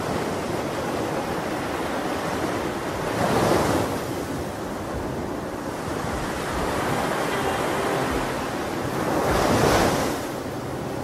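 Ocean surf: a steady wash of waves, with two larger waves swelling and breaking, about three and a half seconds in and near the end.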